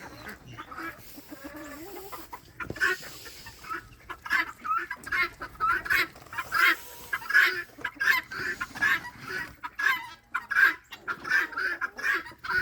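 Guinea fowl calling in a rapid string of short, harsh, repeated squawks that starts about two and a half seconds in and keeps going.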